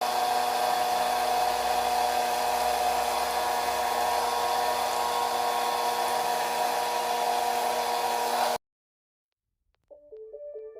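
Small DC motor of a homemade plastic-bottle vacuum cleaner running with a steady whine and fan hiss, cutting off suddenly after about eight and a half seconds. After a brief silence, background music begins near the end.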